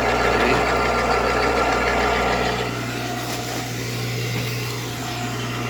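Electric home wood chipper's motor running with no load, just switched on: a steady hum and whirr, a little louder for the first two and a half seconds before settling.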